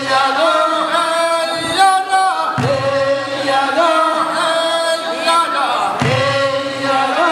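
Men's voices singing a traditional Korean fishermen's work song as they pull the oars, a sung phrase that starts again about every three and a half seconds.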